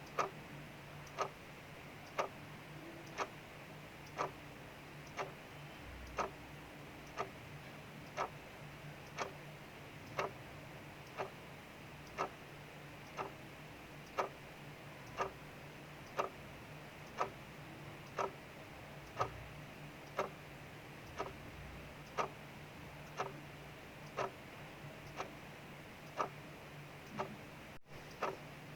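Clock ticking steadily, about one tick a second, over a soft steady hiss of rain and a faint low hum.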